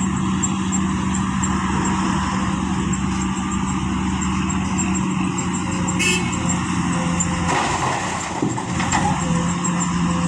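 Heavy diesel engine of construction machinery running steadily, with a sharp knock about six seconds in.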